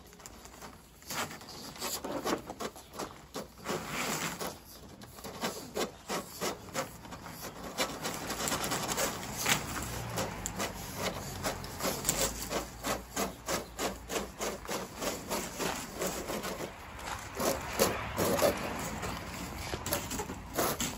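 Corrugated plastic electrical conduit being pushed by hand through the holes of hollow ceramic bricks. Its ridges rub and rasp against the clay in repeated strokes, which settle into about two a second from the middle on.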